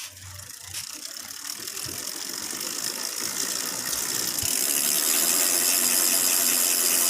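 Ragusa R100 bicycle rear hub's freehub pawls clicking in a fast continuous buzz as the wheel coasts, growing louder over the first five seconds and then holding steady. The hub has just been cleaned and repacked and its pawl springs slightly tightened.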